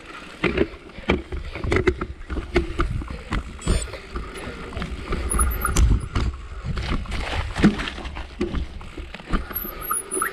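Mountain bike clattering over a rough, rocky moorland trail: irregular knocks and rattles from the bike over a constant low rumble.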